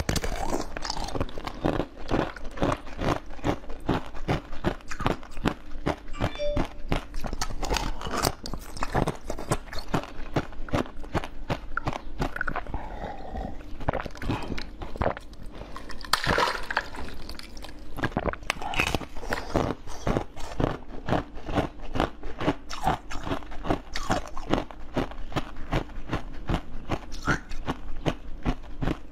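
Close-miked biting and crunching of frozen basil-seed ice: a dense run of sharp cracks and crunches in quick succession.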